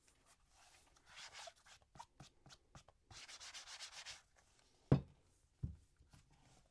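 Hands rubbing and sliding over an object in two stretches, with a run of small clicks between them, then two dull thumps as something is set down, the first the louder.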